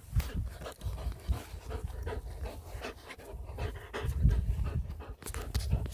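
Dog panting hard while tugging on a deflated soccer ball, with scattered knocks and rustles from the play.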